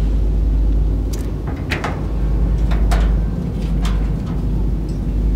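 A wooden shed door with a metal T-handle latch being unlatched and swung open: a handful of sharp clicks and knocks between one and four seconds in, over a steady low rumble.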